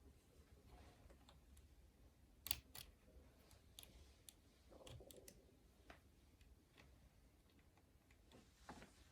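Keys pressed one at a time on a Keychron K2 mechanical keyboard with Gateron Brown switches: a scattered run of faint separate clicks, the loudest pair about two and a half seconds in.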